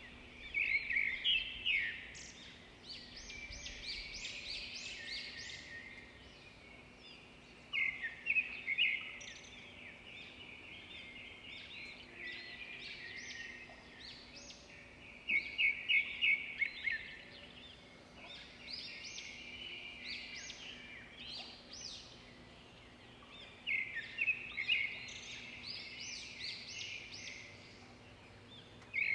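Songbirds chirping in quick bursts of rapid high notes, a burst about every seven or eight seconds, over a faint steady hum.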